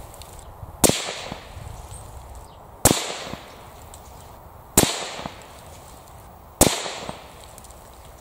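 Accuracy International AT-X rifle in 6.5 Creedmoor firing four shots about two seconds apart, each a sharp report that trails off over about a second.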